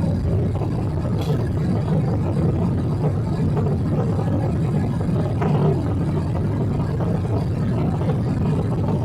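Steady low rumble of a Boeing 777-300's engines and airflow, heard inside the passenger cabin.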